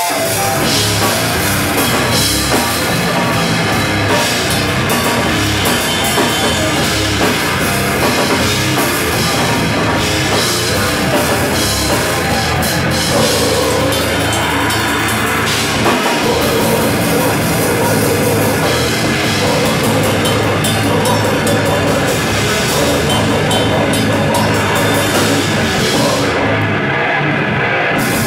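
A live heavy band playing loud, with a drum kit and electric bass, running without a break.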